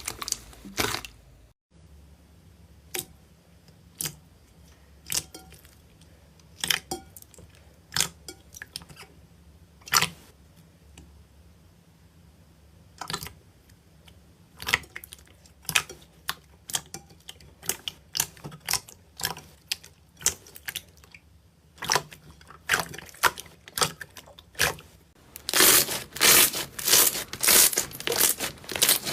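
Slime being pressed and squished, giving sharp pops and crackles about once a second, then a fast, loud run of them near the end.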